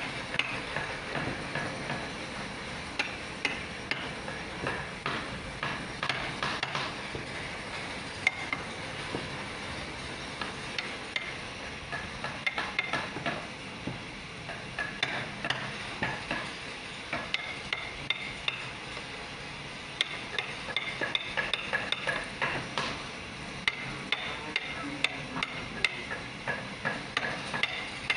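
Wooden mallet tapping the handle of a wood-carving chisel, driving the blade into a wooden panel: runs of light, quick knocks, about two a second, with short pauses between runs.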